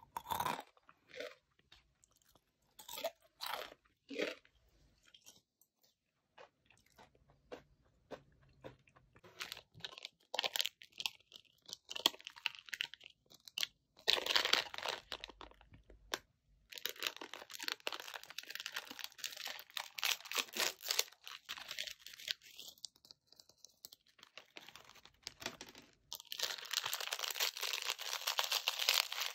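GEMEZ Enaak, a crunchy dried noodle snack, being bitten and chewed close to the microphone: a few separate crunchy bites at first, then long stretches of fast, dense crunching.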